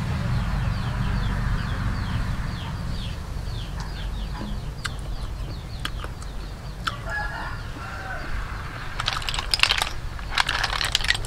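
Chickens peeping and clucking in the background, with quick repeated high chirps. Near the end comes a loud clatter of cooked snail shells knocking together as hands rummage through the pile.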